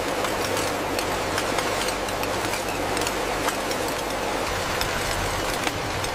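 Vial conveyor and filling-line machinery running: a steady hum under a dense noise, with frequent light clicks and clinks.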